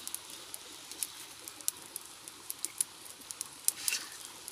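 Small campfire of twigs and embers crackling, with sharp, irregular pops.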